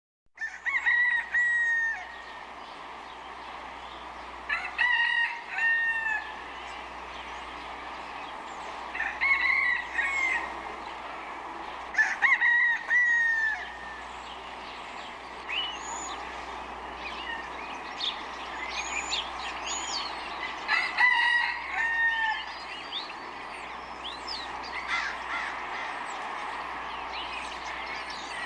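A rooster crowing several times, spaced a few seconds apart, with small birds chirping between the crows over a steady background hiss.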